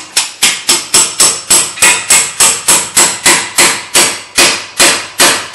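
Hammer blows on a pickle-fork ball joint separator wedged between the ball joint and the steering knuckle, about three and a half steady, sharp metallic strikes a second, each with a short ring. The fork is being driven in to break the ball joint's tapered stud loose from the knuckle.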